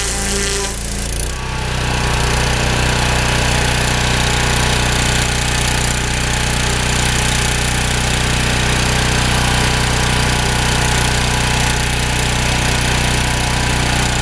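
3000 psi pressure washer running with a turbo nozzle, its water jet blasting a deer hide as a steady machine hum under a loud, even hiss. The hiss thickens about a second in and then holds steady.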